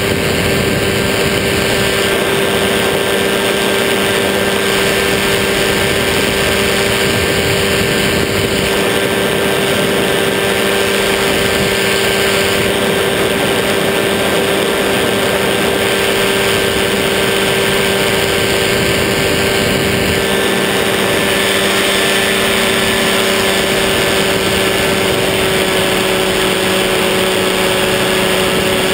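Powered parachute's engine and propeller running steadily in flight, one unchanging drone with no change in pitch.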